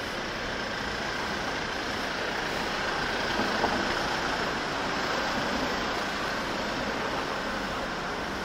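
Road traffic on a city street, with a small truck driving past; the traffic noise swells slightly in the middle, and a single brief knock is heard a little over three and a half seconds in.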